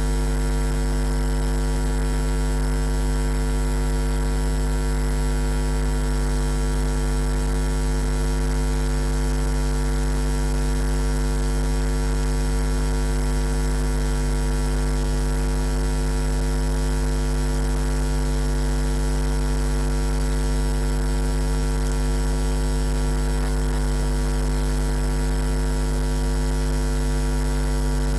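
Loud, steady electrical mains hum: a low buzz with a ladder of higher overtones above it, never changing.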